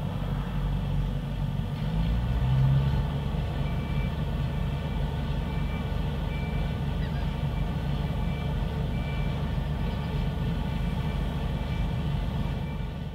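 Heavy diesel machinery running steadily, with a backup alarm beeping a little more than once a second from about four seconds in.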